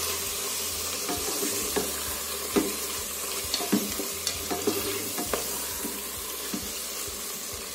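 Chicken, onion, bell pepper and chopped tomato sizzling in a multicooker bowl on its frying mode while being stirred with a plastic spatula, which gives a series of light scrapes and taps against the bowl over the first five seconds or so.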